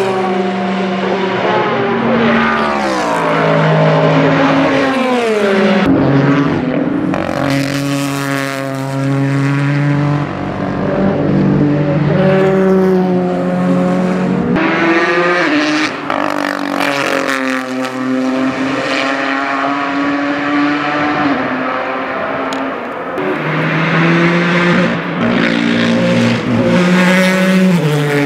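Ford GT GTE race cars' 3.5-litre twin-turbo V6 engines passing at racing speed. The pitch falls through downshifts near the start, then climbs in repeated rising sweeps with gear changes as the cars accelerate away, several passes in a row.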